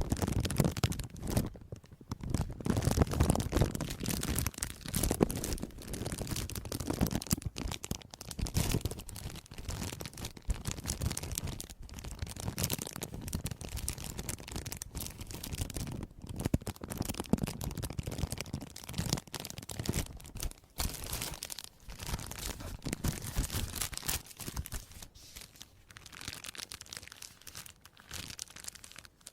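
Crisp crackling, crinkling and crunching close to the microphone, in irregular runs broken by brief pauses, softer near the end.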